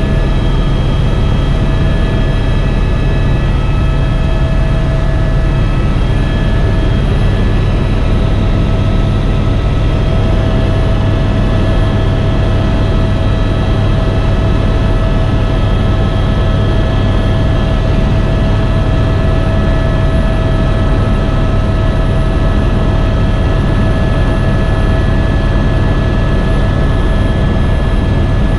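Helicopter in steady flight: a constant low drone of rotor and engine with a steady whine over it.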